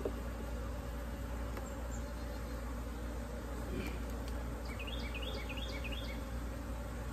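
Honey bees buzzing steadily around an opened hive, a defensive, agitated colony. About five seconds in, a quick run of short high chirps sounds over the buzz for about a second.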